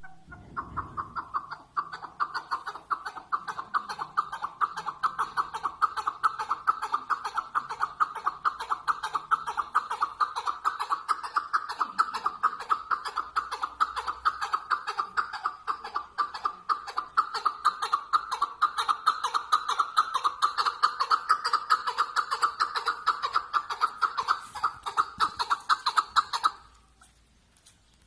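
Chukar partridge (chakor) calling: a long, unbroken run of rapid clucking notes that cuts off suddenly about 26 seconds in.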